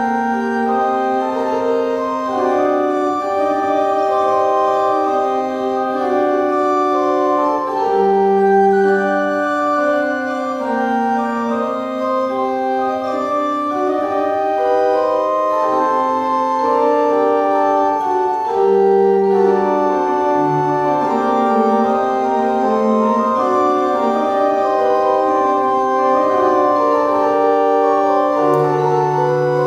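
Pipe organ playing slow music in several voices, with held notes moving in steps and low pedal notes coming in now and then.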